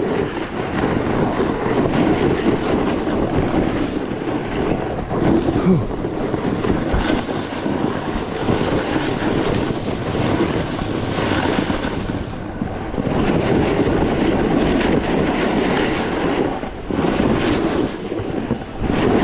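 A snowboard sliding and scraping over packed snow on a downhill run, with wind rushing over the microphone. It is a steady, loud rushing noise that dips briefly twice.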